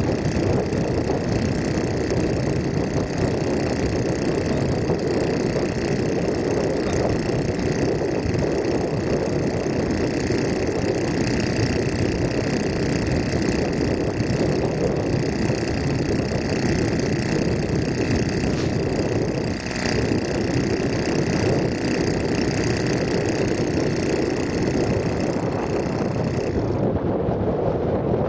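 Rice transplanter's engine running steadily, with wind on the microphone; the higher hiss drops away near the end.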